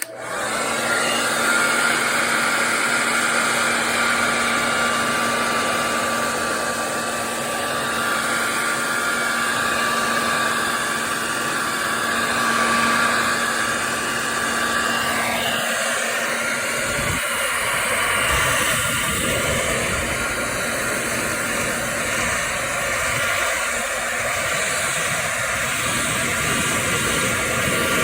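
Hair dryer switched on and blowing steadily at close range, a continuous rush of air with a motor whine. The whine fades a little past halfway, leaving mostly the steady rush of air.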